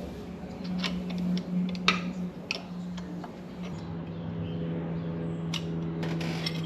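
Irregular metallic clicks and clinks of hand tools working threaded exhaust-manifold studs into the engine, with a steady low hum underneath.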